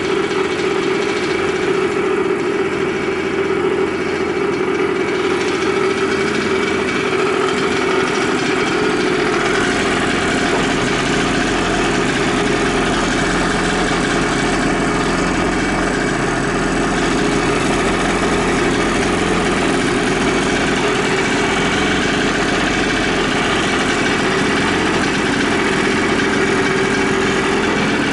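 Honda NS-1 50cc two-stroke single-cylinder engine, fitted with a big carburettor, idling steadily with no abnormal noises.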